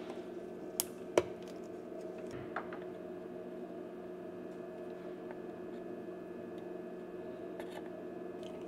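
A steady electrical hum, with two sharp clicks about a second in as a printer power circuit board is handled and turned over on a silicone work mat. A few faint ticks follow.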